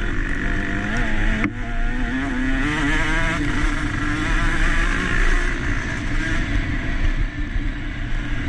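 KTM SX 150 two-stroke single-cylinder motocross engine under race load, revving up and down through the gears. About a second and a half in the revs cut briefly, as in a gear change, then climb again.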